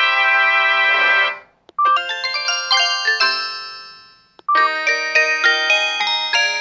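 Samsung SGH-M620 mobile phone's speaker playing a series of short built-in polyphonic tone melodies, one after another. One melody fades out just over a second in, the next starts near two seconds in and dies away, and a third begins about four and a half seconds in.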